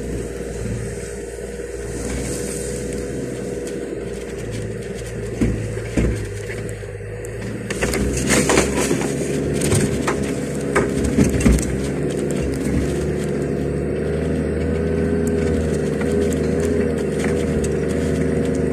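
Toyota Land Cruiser 76 engine running steadily while driving on a rough dirt track, heard from inside the cab. Several knocks and rattles from the vehicle jolting over bumps come between about five and twelve seconds in.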